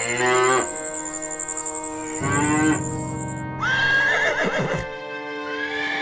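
A cow mooing twice, briefly at the start and again about two seconds in, then a horse whinnying from about three and a half seconds in, over background music.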